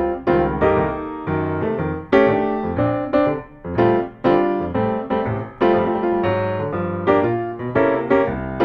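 Background music: piano playing chords, each one struck and then fading.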